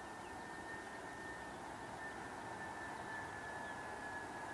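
Airbus A321-211's CFM56 turbofan engines on final approach at low thrust: a steady rushing hiss with a high whine that sinks slightly in pitch and grows a little louder.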